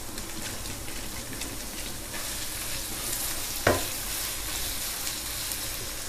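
Freshly added sliced onions sizzling in hot oil in a wok while a wooden spoon stirs them. The sizzle grows brighter about two seconds in, and there is one sharp knock of the spoon against the pan a little past halfway.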